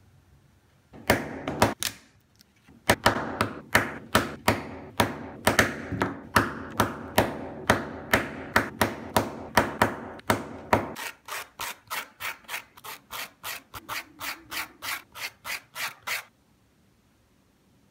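Hand sanding: quick back-and-forth rubbing strokes, about three a second with a dull knock in each, then lighter and quicker at about four a second. The strokes stop abruptly near the end.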